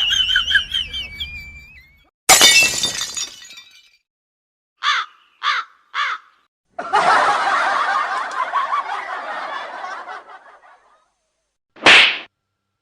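A string of short stock comedy sound effects separated by silences: warbling tones at first, a sudden crash like breaking glass, three quick beeps, a noisy stretch of about four seconds, and a short sharp burst near the end.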